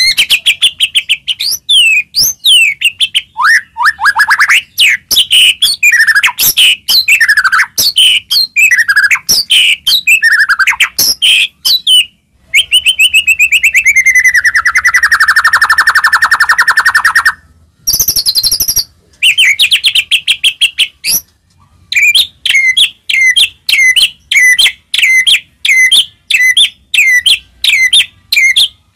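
White-rumped shama (murai batu) singing a loud, varied song of rapid chirps and trills. About halfway there is a long trill that falls in pitch, and near the end a run of sharp, evenly repeated chirps, about two a second.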